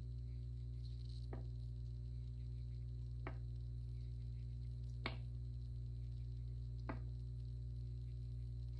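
Four light, sharp clicks, spaced about two seconds apart, as holes are cut through the wall of a firm clay cup with a small hand tool. A steady low hum runs underneath.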